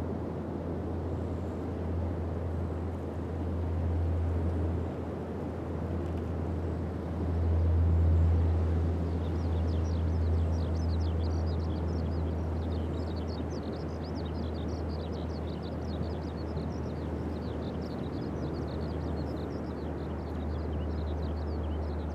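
Pacific surf breaking and washing on a sandy beach: a steady deep rumble and wash that swells around four seconds in and again, loudest, around eight seconds. From about nine seconds in, a run of rapid high chirps sits above the surf.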